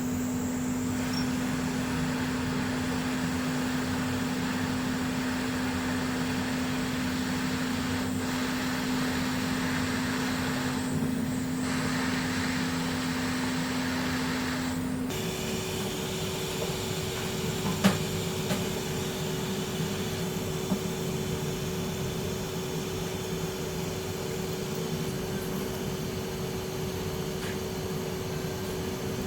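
Steady whir of a small electric fan or blower motor, with a hum that steps up to a higher pitch about halfway through. A single sharp click comes a few seconds later.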